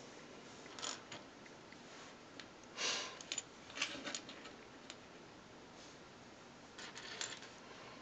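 Small plastic LEGO pieces clicking and rattling as they are handled and pressed together, in a few scattered bursts; the loudest is a short rattle about three seconds in, with another cluster of clicks near the end.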